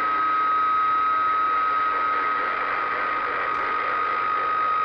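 CB radio receiver static: an even hiss with a steady high whistle, as from an open carrier or two signals beating on the channel.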